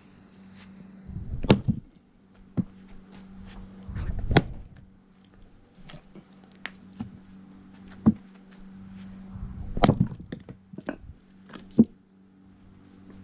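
Axe splitting oak firewood logs: about five heavy chopping strikes a couple of seconds apart, with lighter wooden knocks in between. A steady low hum runs underneath.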